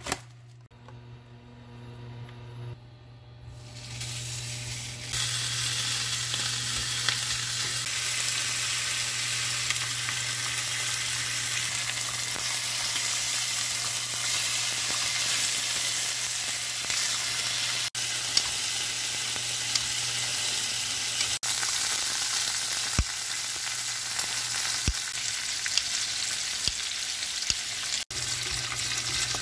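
Pork belly slices sizzling in oil in a frying pan, a steady hiss that sets in about four seconds in, with tongs now and then turning the pieces. A low steady hum runs underneath.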